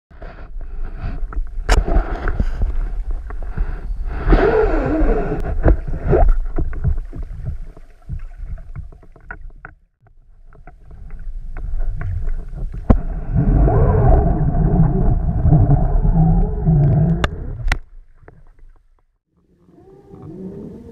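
Muffled underwater sound picked up by a submerged camera: low rumbling, sloshing and bubbling of water stirred by divers at the surface, with wavering muffled tones. It comes in two long loud stretches, then drops away near the end.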